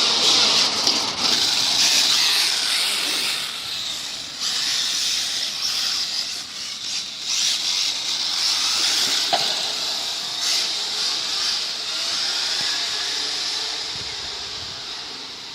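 Radio-controlled Mk2 Escort model car driving on tarmac: a high, hissing whir of motor and tyres that rises and falls as it goes, fading near the end.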